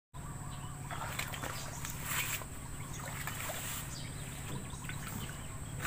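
Footsteps wading and splashing through shallow pond water, with irregular sloshes, the loudest about two seconds in, over a steady low hum.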